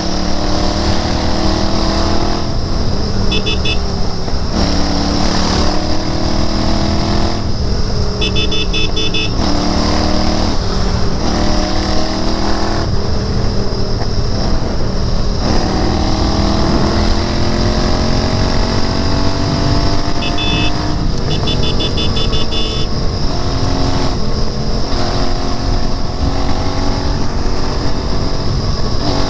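Royal Enfield Interceptor 650's parallel-twin engine under way, its pitch climbing as it pulls and dropping back at each gear change, again and again. Short runs of rapid high-pitched beeping come through about three seconds in, around eight seconds, and again around twenty to twenty-two seconds.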